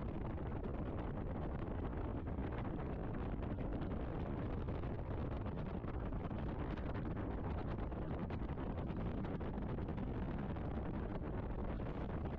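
Steady low rumble of a moving vehicle's road noise, with wind on the camera's microphone.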